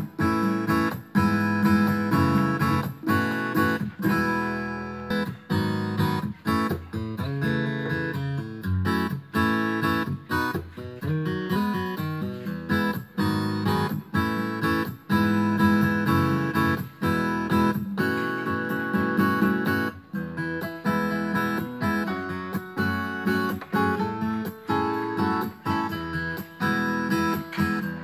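Background music: an acoustic guitar playing, strummed and plucked, with frequent regular note attacks and an even level.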